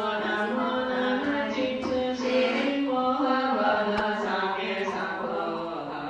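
Slow chanted singing of long held notes that step up and down in pitch, in the manner of a Buddhist funeral chant.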